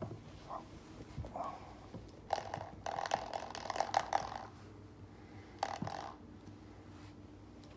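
Coiled-spring door stop twanging with a buzzy boing each time it is flicked, several times, the longest and loudest stretch about three to four seconds in.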